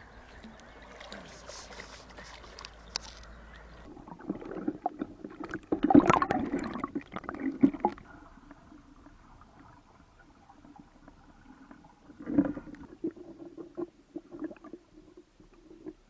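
Faint outdoor hiss at first, then lake water sloshing and gurgling around a camera dipped below the surface, heard muffled. Two louder splashes come about six and twelve seconds in.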